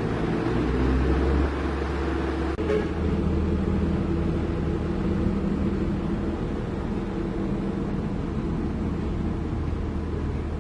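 Heavy diesel engine running with a steady low drone. A brief click comes about two and a half seconds in, after which the engine note shifts.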